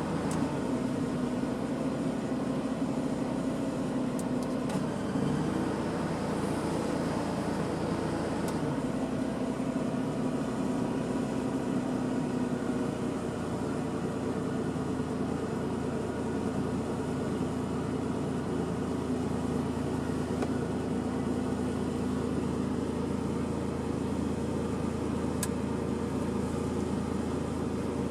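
Suzuki Cappuccino's three-cylinder engine idling steadily. Its note shifts about five seconds in and settles back around eight and a half seconds.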